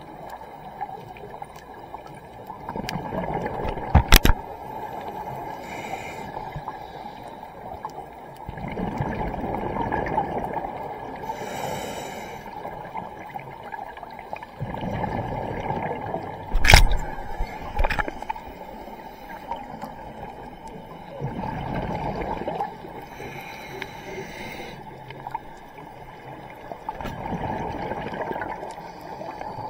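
Scuba diver's exhaled regulator bubbles heard underwater, a rush of sound coming about every six seconds. Two sharp knocks stand out, about four seconds in and again about seventeen seconds in.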